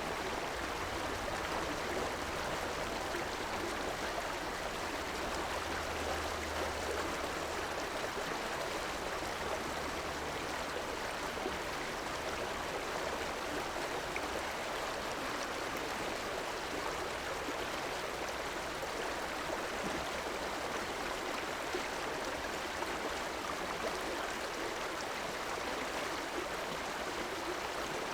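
River water rushing steadily, an even, unbroken flow. A faint low hum runs under it through about the first half and then fades.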